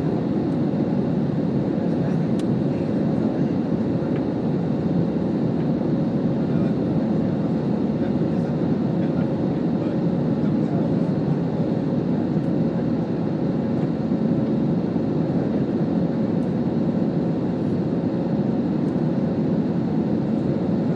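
Steady cabin noise of a commercial airliner climbing after takeoff: engine and airflow sound, even and unchanging, with a faint steady hum.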